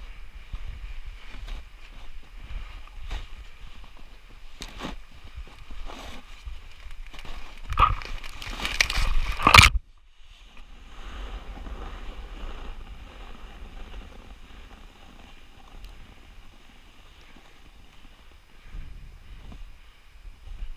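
Sliding downhill on snow: scattered knocks and scraping at first, building to a loud, rough scrape about eight to ten seconds in that cuts off suddenly, then a quieter steady hiss of gliding over the snow.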